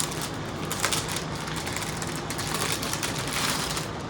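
Parcel packaging rustling as it is handled, in irregular crinkles.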